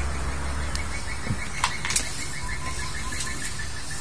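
A bird chirping rapidly in the background over steady outdoor noise, with a low hum that fades out about a second in and two faint clicks.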